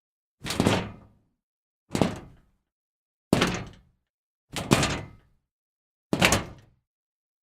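Scrap metal being kicked: five separate metallic clanks about every one and a half seconds, each sharp at the start and clattering away over about half a second.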